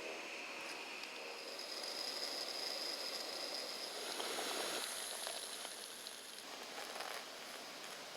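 Jetboil gas stove burning, a hiss that grows a little louder through the middle as the water heats for coffee.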